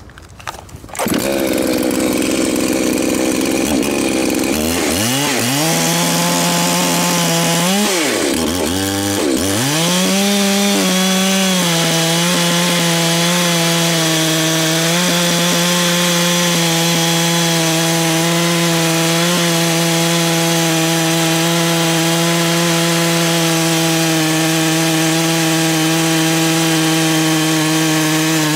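Ported Echo 590 two-stroke chainsaw with a 42-inch bar and ripping chain milling a white oak log. The engine comes up loud about a second in and revs up and down a few times. From about ten seconds in it holds a steady full-throttle pitch as the chain rips through the wood.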